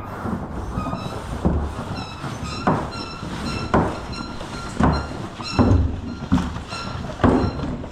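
Scrubbing strokes on a boat hull at a car wash, about one a second, over a steady hiss of water, with high squeaky tones coming and going between the strokes.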